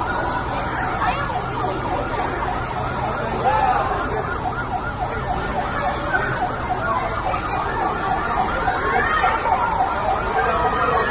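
Fire-engine siren sounding a fast yelp, its pitch rising and falling several times a second.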